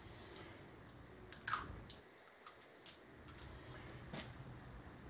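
A few faint, scattered metallic clicks and clinks of a hand tool against the engine, over quiet room tone.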